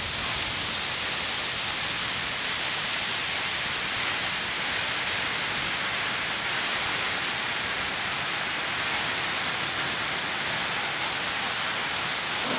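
Waterfall, Alamere Falls, pouring in full flow: a steady, even rushing hiss of falling water that does not change.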